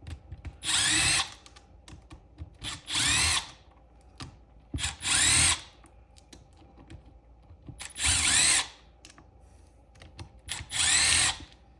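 Power drill/driver fitted with a socket, run in five short bursts that each spin up and wind down, backing out engine bolts.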